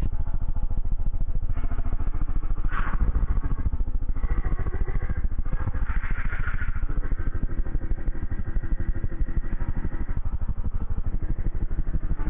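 A vehicle engine idling with a steady, even pulse.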